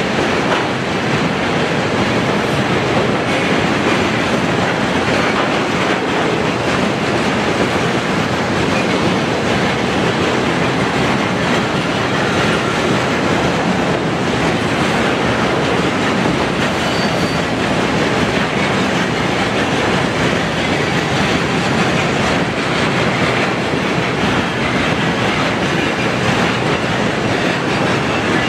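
Rail tank cars of a freight train rolling past close by: a loud, steady rumble of steel wheels running on the rails.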